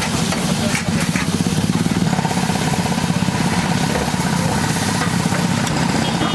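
Sizzling gravy on a large iron tawa, stirred and spread with a metal spatula that scrapes the pan now and then, over a steady low engine-like rumble with a fast pulse.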